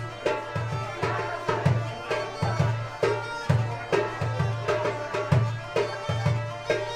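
Belarusian bagpipe (duda) playing a lively dance tune over its steady drone, with percussion beating a regular rhythm about twice a second.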